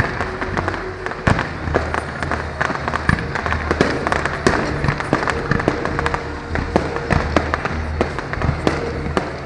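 Fireworks display: a rapid, irregular string of sharp bangs and crackles from bursting shells, with music playing underneath.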